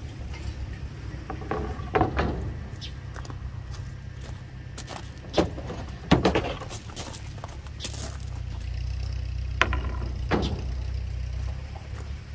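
Plywood boards being set down and shifted on a steel diamond-plate trailer deck: a handful of knocks and scrapes, the loudest about six seconds in, over a steady low rumble.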